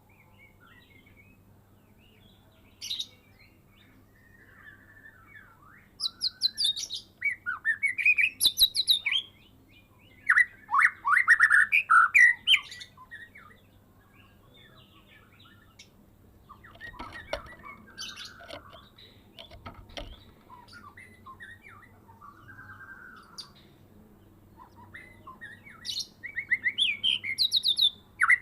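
White-rumped shama (Medan murai) singing in bursts of loud, fast, varied whistled phrases, its song full of imitated calls, with softer twittering in the pauses between bursts.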